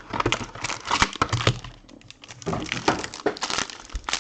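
A trading card box and its wrapping being opened and handled: the cardboard and wrapper give off irregular crackling, clicks and rustling.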